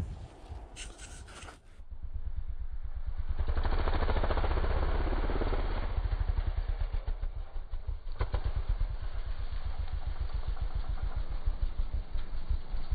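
Yamaha Raptor 700 quad's single-cylinder engine under throttle, heard as a low, rapidly pulsing drone that swells a few seconds in, with a brief knock about eight seconds in.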